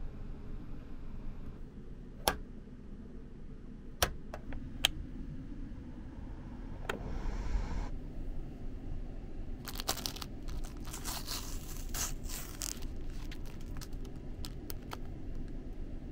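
Clear plastic sandwich bag being handled and opened: a few sharp clicks and taps, then a dense run of crinkling and rustling in the second half, over a low steady hum.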